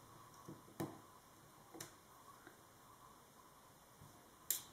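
Light handling noise: a few scattered clicks and taps as small scrapbooking embellishments and paper packets are sorted by hand over a wooden table, the sharpest click just before the end, over a quiet room.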